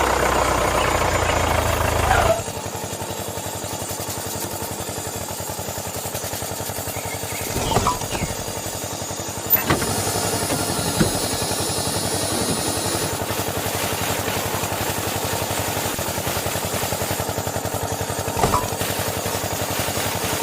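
Small electric motor driving a homemade saw and wood-splitter machine, running with a fast, steady mechanical rattle. It is louder and harsher for the first two seconds, then settles to an even run, with a few short knocks in between.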